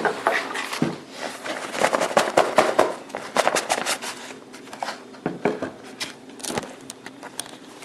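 Hands handling a PC power supply's box and packaging: a run of knocks, clicks and rustles, busiest in the first half and sparser toward the end.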